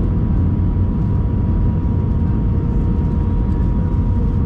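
Cabin noise inside an Airbus A320-family jet airliner descending on approach: a steady low rumble of engines and airflow, with two faint steady tones, one at about twice the pitch of the other.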